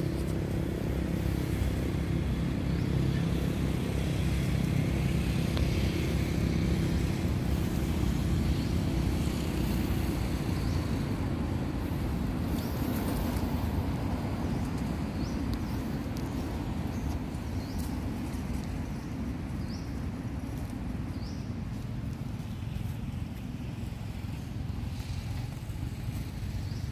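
Steady low drone of a motor vehicle engine running nearby, slowly fading over the second half.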